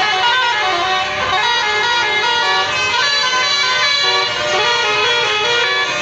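Telolet basuri bus horn playing a melody: several horn tones sound together and step from note to note.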